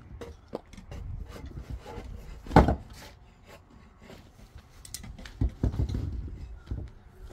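Wood being handled and worked: scattered wooden knocks and rubbing, with one loud knock about two and a half seconds in and a cluster of knocks near the middle of the second half.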